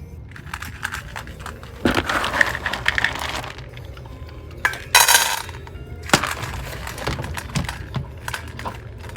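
Dry pet food clinking and crunching in a hard bowl, in two longer bursts with scattered clicks between them.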